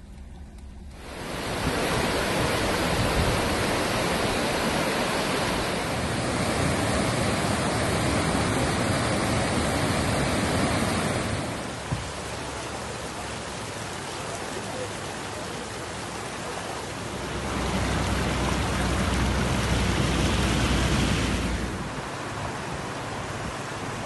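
Rushing flash-flood water in a rocky mountain wadi: a steady, even noise of muddy torrent pouring over stones. Its level steps up and down abruptly several times, with a heavier low rumble for a few seconds near the end.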